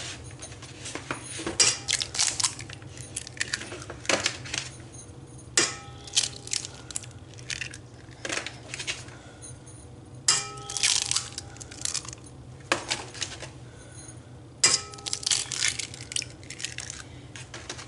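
Eggs being cracked on the rim of a stainless steel mixer bowl: a series of sharp taps spread over several seconds, several of them leaving the metal bowl ringing briefly.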